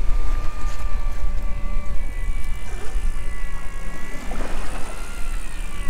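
Electric deep-drop fishing reel whining steadily as its motor winds line up from deep water against heavy lead, over a loud low rumble.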